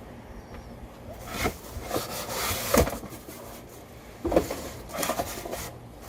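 Things being handled and set down: a handful of separate knocks and rustles, the sharpest a little under three seconds in.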